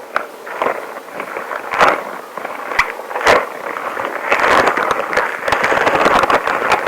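Long rubber gloves rubbing together close to the microphone, with scattered sharp crackles and squeaks at first. About four seconds in it becomes a dense, continuous rubbing.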